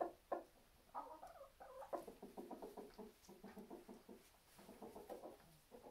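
Domestic hens clucking in a quick run of short, repeated calls, with two sharp clicks just before.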